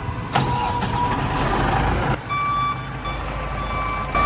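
Backhoe loader's diesel engine running while its reversing alarm sounds as a steady electronic tone, the machine backing up. A sharp knock is heard about half a second in.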